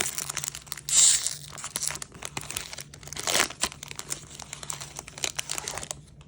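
Plastic foil wrapper of a Donruss Optic trading-card pack being torn open and crinkled by hand, with louder rips about a second in and again after about three seconds.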